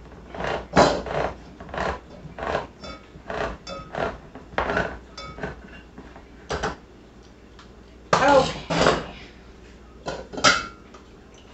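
Handheld manual can opener cranked around the rim of a large tin can: a run of irregular clicks with thin metallic squeaks as the blade cuts the lid, then a few louder knocks near the end.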